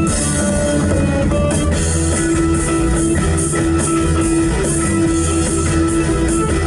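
Rock music: an instrumental passage led by strummed electric guitar over bass and drums with a steady beat.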